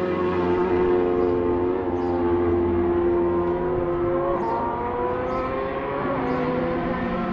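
High-revving road-racing motorcycle engine heard from the roadside as it recedes down the course, its pitch steady at first and then climbing again from about four seconds in as it accelerates.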